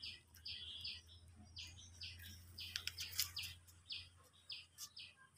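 A small bird chirping over and over, short high chirps about two or three times a second, with a few sharp ticks in between.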